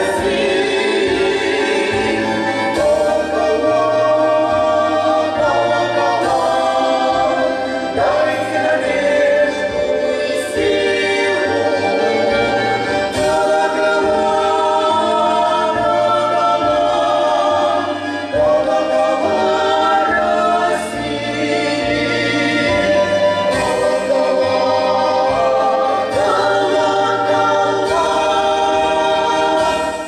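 Female vocal trio singing a song in close harmony, several voices holding and moving chords together.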